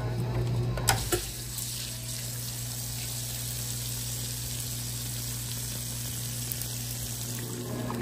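Electrolux Top8 top-loading washing machine filling its tub with water: a click about a second in as the water-level selector is turned to medium, then the steady hiss of water pouring in through the inlet valve over a low steady hum.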